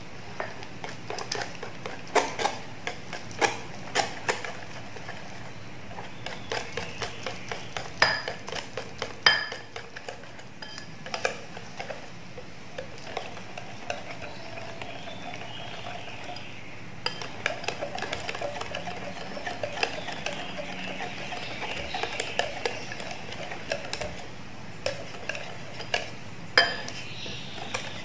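A wire whisk stirs thin batter in a glass bowl, clinking irregularly against the glass between wet swishing strokes. The batter is being beaten smooth to work out the lumps.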